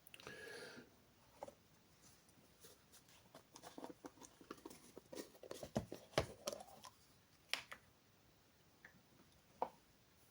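Faint handling noises: scattered light clicks and taps of small objects being moved about, busiest in the middle, with a few sharper knocks.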